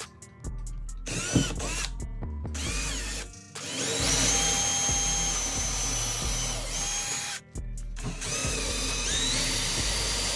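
Milwaukee cordless drill boring small pilot holes into a wall stud. A few short trigger blips with the motor whine rising come first, then two steady runs of about four and two and a half seconds, the whine stepping up in pitch partway through the second. Background music plays underneath.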